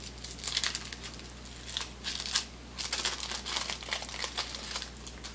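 Paper wrapper of a 1988 Topps Big Baseball Cards pack crinkling and tearing as it is pulled open and peeled off the stack of cards. It comes in a series of irregular crackly bursts, the loudest about two and a half seconds in.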